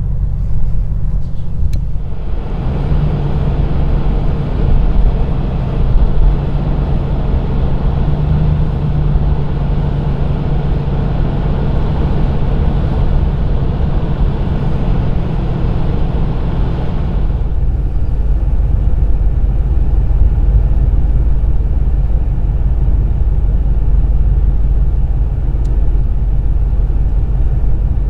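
Motor vehicle rumble with a steady low hum. A louder, broad hiss comes in about two seconds in and cuts off about fifteen seconds later.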